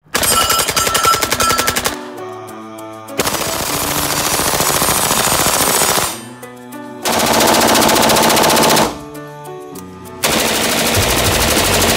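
Full-auto submachine-gun fire: four sustained magazine-dump bursts of about two to three seconds each, with short gaps between them where background music is heard.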